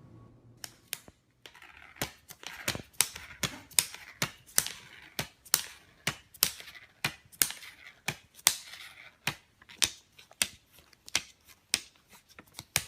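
A bag crackling and snapping again and again, uneven at about two to three sharp cracks a second, as a cat caught on it moves about.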